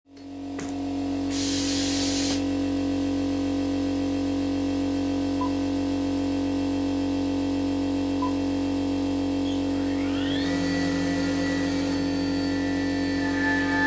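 Spindle of a small DIY CNC mill running with a steady whine while cutting, with two short bursts of hissing spray. About ten seconds in the pitch glides up and settles into a higher whine.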